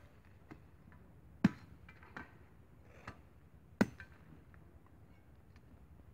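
Machete chopping a thin wooden stick: two sharp knocks about two seconds apart, with a few fainter taps between.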